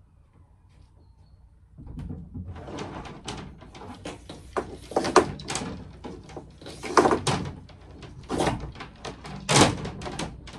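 6 mm solar cables being dragged up through a roof mushroom vent: repeated scraping and knocking that starts about two seconds in, with a few sharper knocks in the second half.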